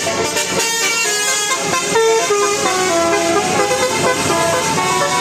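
Bus telolet horn sounding a string of musical notes, its pitch jumping from note to note.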